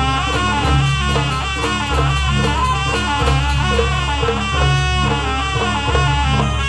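Live music for a dance: a wind instrument plays a bending melody over drums keeping a steady repeating beat.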